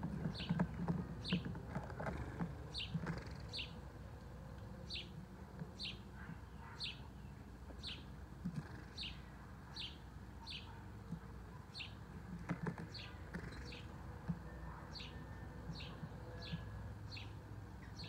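House sparrows chirping: a steady series of short, single cheeps, about one and a half a second, with a few low knocks and rustles in the first couple of seconds.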